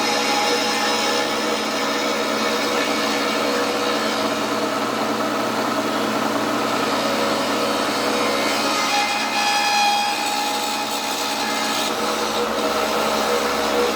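Milling machine running a carbide cutter at about 4,200 RPM, cutting a slot through a metal bracket plate: a steady grinding cutting noise with several high whining tones that shift in pitch about nine seconds in.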